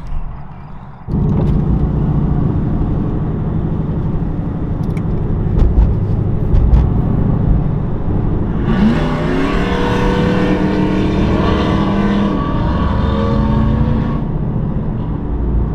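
Car engine and road noise heard from inside the cabin while driving on a highway. About nine seconds in the engine pulls harder, its pitch climbing and then holding for about five seconds with a rushing hiss on top, before it eases off again.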